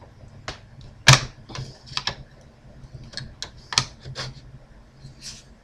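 Metal screwdriver tip prying and scraping at parts on a circuit board: irregular sharp clicks and short scrapes, about ten in all, the loudest about a second in and again near four seconds.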